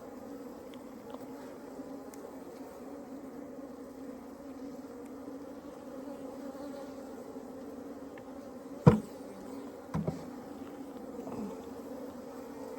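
Many honeybees buzzing in a steady hum. A sharp knock sounds about nine seconds in, the loudest thing here, and a smaller knock follows a second later.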